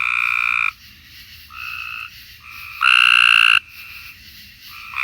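Cope's gray tree frogs giving their regular trilled advertisement call: two loud calls, each under a second, about three seconds apart, with fainter calls from other frogs in between.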